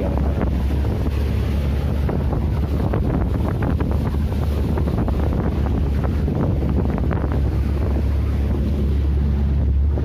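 Boat engine running steadily under way, a constant low hum, with strong wind buffeting the microphone and choppy waves washing against the hull.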